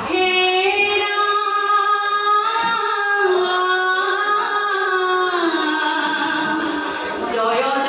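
Women's voices singing an Assamese dihanam, a slow devotional naam chant, in long held notes that glide gently between pitches.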